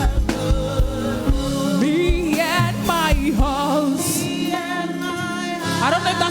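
Gospel worship music: a singer's voice gliding and wavering through a free, ornamented line over held chords. The bass and drum beat thins out after about two seconds and comes back in near the end.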